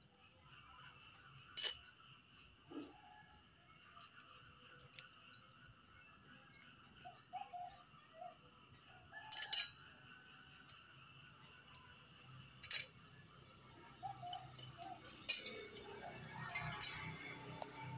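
Worn clutch plates from a Yamaha Vixion New LED clinking as they are handled and lifted out of the clutch basket: several sharp, separate metallic clinks, two of them in quick pairs.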